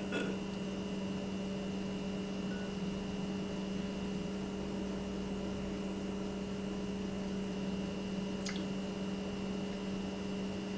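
Steady low hum of room tone, with a faint tick about eight seconds in.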